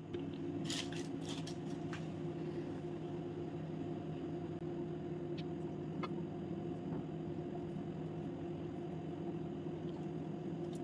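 Steady low background hum, with a few faint soft clicks in the first two seconds and again about six seconds in.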